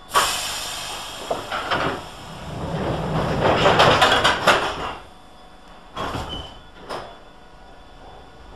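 Train wheels running through the station: a sudden loud burst of wheel and rail noise, clanking over the rail joints, a louder rumbling stretch midway, then a few separate clanks.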